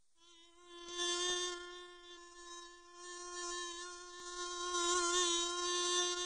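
A bee buzzing at a steady pitch, beginning out of silence and swelling louder and softer: louder about a second in, again around three seconds and from about five seconds on.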